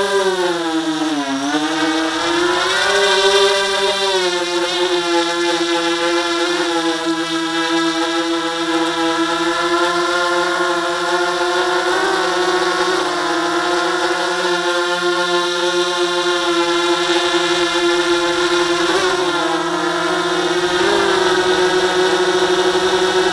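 Small camera drone's propellers humming steadily as it hovers low and turns. The pitch dips and recovers about a second in and wavers slightly near the end.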